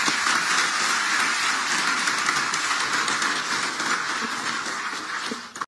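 Applause from a chamber full of people, many hands clapping at once, easing off slightly near the end.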